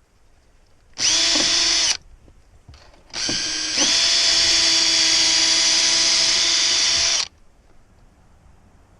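Power drill boring pilot holes for a slide bolt's screws: a short run of about a second, then a longer run of about four seconds that speeds up shortly after it starts.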